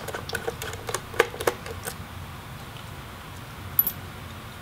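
Small clicks of a Phillips screwdriver turning out the metal display hinge screws of an Alienware M17 laptop, several in the first two seconds, with one short bright click near the end.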